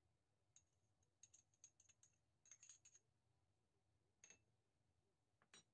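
Faint clinks and clicks of ceramic bowls: a quick scatter of small clicks as sugar is tipped from one small bowl into another, then two single knocks about a second apart near the end.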